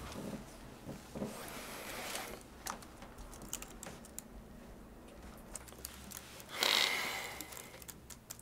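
Typing on a MacBook laptop keyboard: a run of quiet, irregular key clicks. About two thirds of the way through there is one short rush of noise, louder than the clicks.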